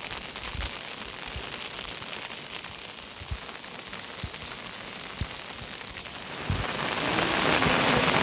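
Steady rain falling, with scattered single drips standing out, growing louder about six and a half seconds in.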